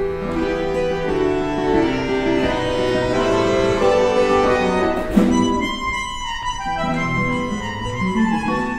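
Bandoneon and classical guitar playing a milonga together, the bandoneon holding sustained chords and melody over the guitar. A sharp accented chord comes about five seconds in, after which the texture thins.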